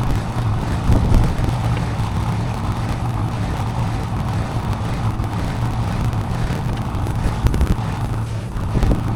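Small 25-horsepower mini excavator engine running steadily while digging, with occasional knocks.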